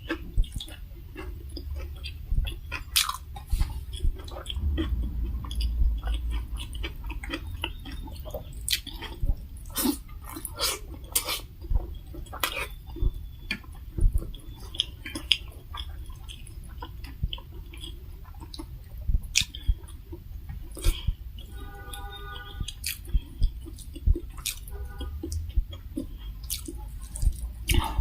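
Close-miked eating: wet chewing, lip smacks and irregular crunchy clicks from a mouthful of rice and curry.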